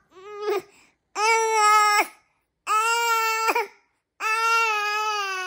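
Infant crying: a short rising whimper near the start, then three long wails of about a second each, separated by brief pauses for breath.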